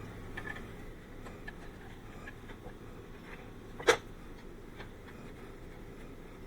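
Faint scattered clicks, then one sharp knock about four seconds in, over a low steady hum.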